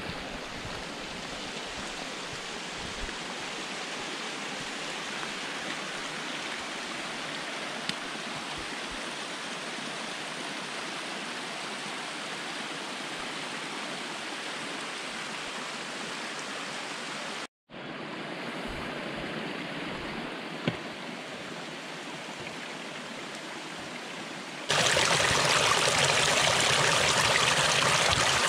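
Mountain stream rushing steadily. It drops out for a moment partway through, then from near the end it is much louder and closer, as water from a small cascade splashes over a plastic bottle being filled.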